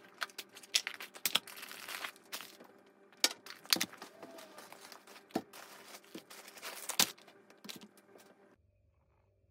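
Shopping being unpacked onto a glass table: plastic packaging crinkling, with packs and jars set down in a run of sharp clicks and knocks, the loudest about seven seconds in. The sound cuts off abruptly near the end.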